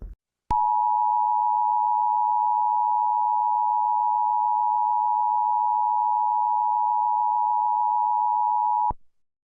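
Emergency Alert System attention signal: a loud, steady two-pitch electronic tone that starts about half a second in and cuts off sharply after about eight seconds.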